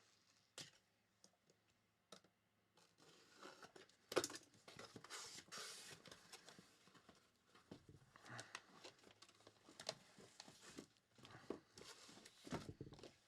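Faint tearing and crinkling of packaging as a box of trading cards is opened, with scattered clicks and rustles of handling. The sharpest tear or snap comes about four seconds in.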